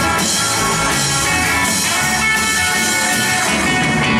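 Live rock-and-roll band playing: electric guitars, bass guitar and drum kit together at a steady level.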